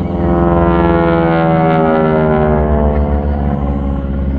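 North American T-6 Texan's radial engine, loud, passing by. Its drone jumps up in level at the start and falls steadily in pitch as the plane goes past.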